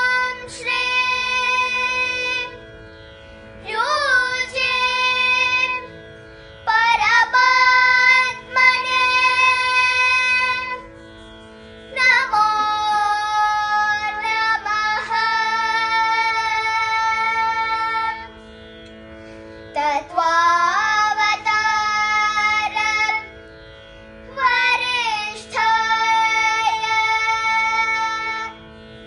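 Two young girls singing a devotional prayer together in long, held phrases that slide up into their notes, with short pauses for breath between phrases. A steady drone sounds under the singing and carries on through the pauses.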